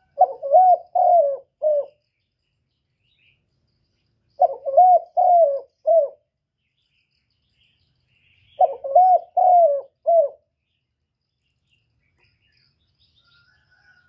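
Spotted dove cooing in the 'kích bổi' calling style: three phrases of about four throaty notes each, roughly four seconds apart.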